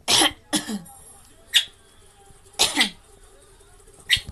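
Lovebird mimicking a person clearing their throat: a series of short coughing bursts, two close together at the start, a brief one about a second and a half in, another pair near three seconds, and a short one near the end.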